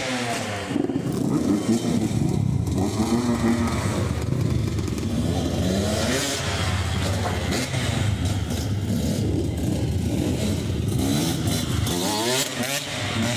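Several two-stroke dirt bike engines revving, the pitch repeatedly climbing and dropping as the throttles are blipped. Near the end one bike accelerates past.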